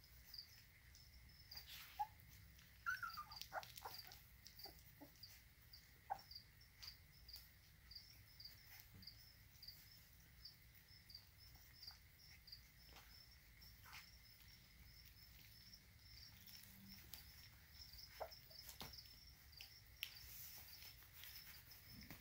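Faint, steady chirping of crickets kept in the lizard tanks, evenly repeated throughout, over scattered small wet clicks of puppies chewing and licking raw ground beef. A brief, high falling squeak comes about three seconds in.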